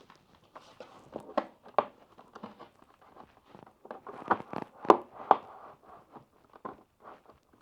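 Plastic flush-mount LED ceiling light fixture being pushed up and twisted onto its ceiling mounting plate: scattered clicks, knocks and scrapes of plastic against the bracket, loudest from about four to five and a half seconds in, as it works to click and lock into place.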